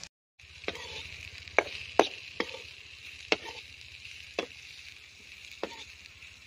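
Sliced okra frying in a metal kadai with a steady sizzle, stirred with a metal spoon that clinks sharply against the pan about ten times at irregular intervals.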